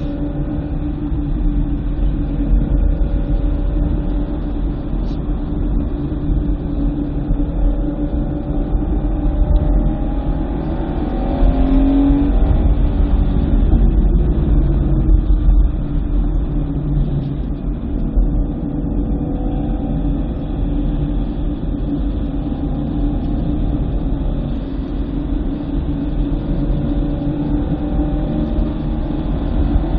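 2009 BMW M3's V8 engine being driven hard around a track, its pitch rising and falling with acceleration and lifting off, over a constant low rumble. It is loudest about twelve to sixteen seconds in.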